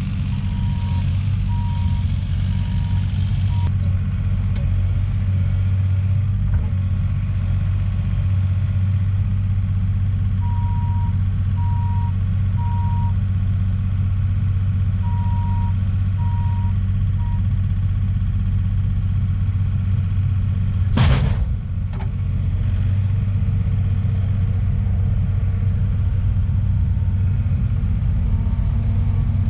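Diesel engine of heavy earthmoving equipment running steadily, its backup alarm beeping in three short runs of beeps as the machine reverses. A single sharp bang cuts through about two-thirds of the way in.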